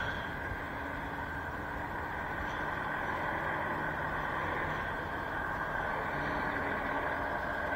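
Lorry diesel engine running steadily at low revs, heard from inside the cab as the truck manoeuvres slowly, with a steady high whine over it.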